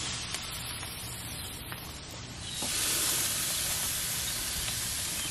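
Marinated meat sizzling on the hot wire grate of a charcoal barrel grill as pieces are laid on with metal tongs. The steady hiss eases a little, then swells again about two and a half seconds in, with a few light clicks.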